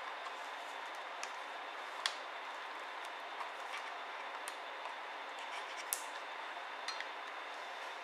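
Light clicks and taps of a solid-state drive in its metal caddy and the plastic bay parts of a ThinkPad X301 laptop being slid and pressed into place, a handful of them scattered through, over a steady hiss.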